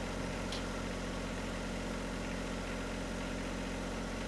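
John Deere 1025R compact tractor's three-cylinder diesel idling steadily, with a faint click about half a second in.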